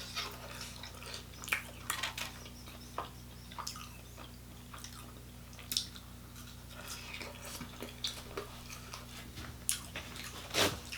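Close-miked eating sounds: chewing with scattered wet mouth clicks and smacks, and one louder mouth sound near the end, over a faint steady electrical hum.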